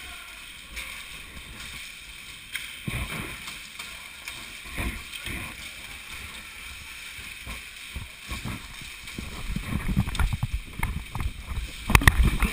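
Rustling and irregular low thumps from a helmet-mounted GoPro being carried through movement, growing busier toward the end, with a few sharp loud clacks near the end.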